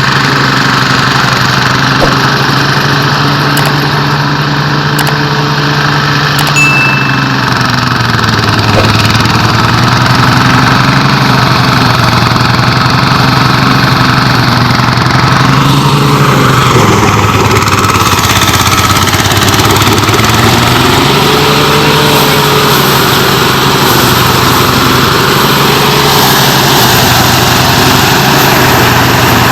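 An engine running steadily and loudly, its pitch wavering and shifting several times, most in the second half.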